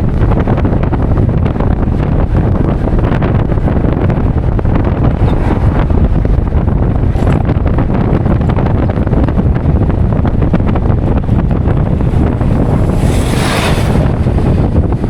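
Wind buffeting the microphone: a loud, steady low rumble, with a brief louder hiss about thirteen seconds in.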